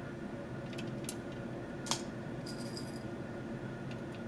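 A few light clicks and a brief clinking rattle of plastic dropper bottles being handled, the sharpest click about two seconds in, over a steady low room hum.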